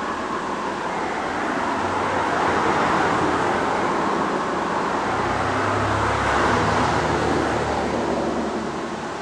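Road traffic passing: a swell of tyre and engine noise that rises and fades, with a low engine hum joining in the second half.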